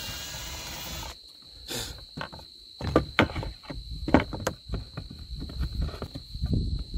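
Cordless drill running with a steady whine, then stopping about a second in. After that come a series of knocks and clatter as the drill is set down on a plywood table and a wooden 2x4 is handled.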